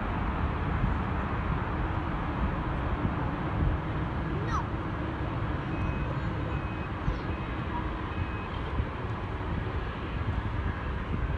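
Engines of a large jet climbing away after takeoff, a steady rumbling roar with wind buffeting the microphone. Four short beeps sound about six to eight and a half seconds in.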